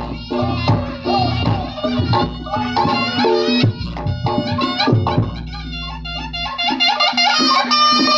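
Reog Ponorogo gamelan accompaniment: a shrill, reedy slompret melody over kendang drum strokes and gong tones.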